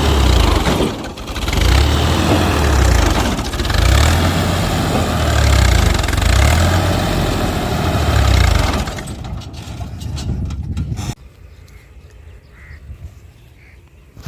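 Heavy diesel engine of an excavator or tractor running loud and rough, its note swelling and easing every two to three seconds as it works. About eleven seconds in it cuts off abruptly, leaving only faint outdoor sounds.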